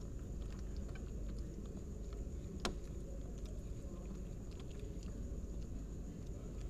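A cat and kitten chewing fish close to the microphone: small scattered clicks and crunches, with one sharper click about two and a half seconds in. Under it runs a steady low rumble and a faint high whine.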